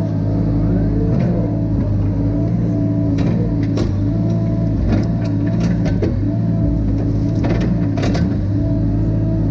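Cat mini excavator's diesel engine running steadily under load, heard from inside the cab, with a wavering hydraulic whine over it. Scattered sharp clicks and knocks come through the middle of the stretch.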